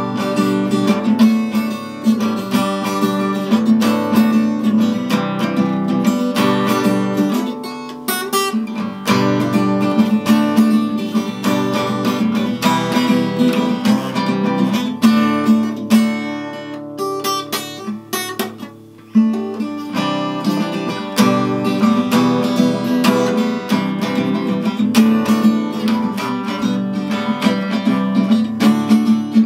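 Acoustic guitar strummed in a steady rhythm, with a brief pause about two-thirds of the way through.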